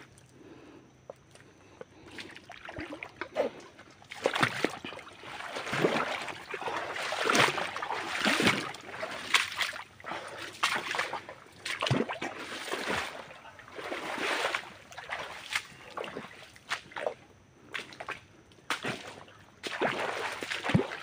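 Shallow water splashing and sloshing in irregular bursts, starting about four seconds in, as someone wades through a mangrove creek.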